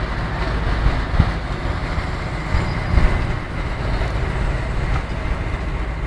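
Steady running of excavator diesel engines on a construction site, with short knocks about a second in and again around three seconds in.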